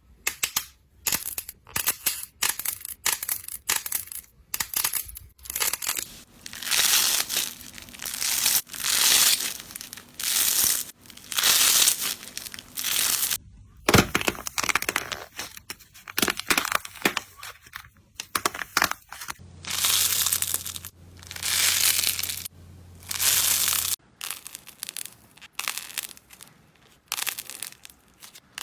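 Slime being pressed, squeezed and pulled apart by hand, making a run of irregular crackling, tearing sounds, some short and some drawn out over about a second.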